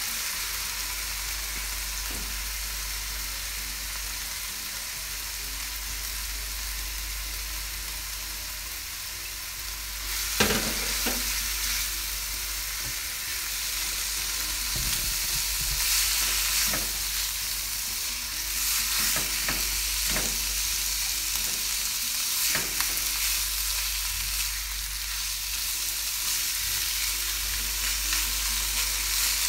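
Chicken and carrots sizzling in oil with a fried spice paste in a granite-coated wok, stirred with a spatula. The sizzle is steady, gets louder about ten seconds in, and has scattered sharp knocks of the spatula against the pan.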